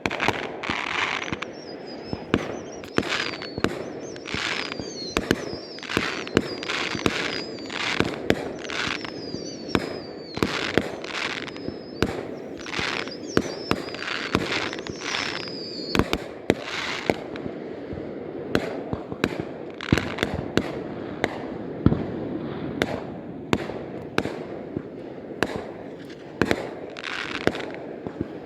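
Fireworks display going off: a rapid run of sharp bangs, many followed by crackling. A high, wavering whistle runs through the first half.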